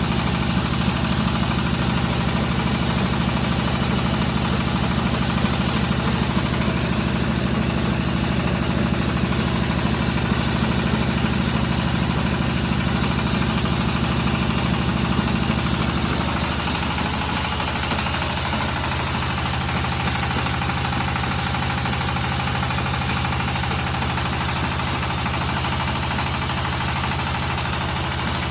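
Extruder machine running steadily under power with a low, even drone. About 16 seconds in the sound shifts and becomes slightly quieter, then runs on evenly.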